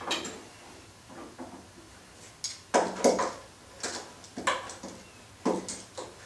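Metal pipe clamps being worked and tightened on a glue-up: about four short metallic clacks and scrapes in the second half, with quieter handling noise between.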